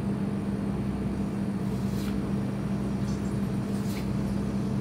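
Starch-coated tofu blocks going into hot deep-frying oil and sizzling quietly, with two faint crackles about two seconds in and near four seconds, over a steady low mechanical hum.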